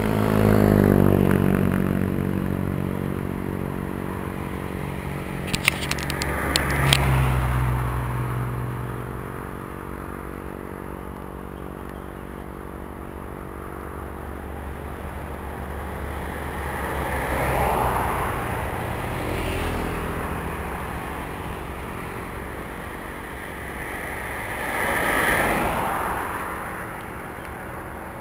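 Motor vehicles passing on the road. The first and loudest goes by at the start, its engine hum falling in pitch as it passes. Two more pass about two-thirds of the way through and near the end. A few sharp clicks come about six seconds in.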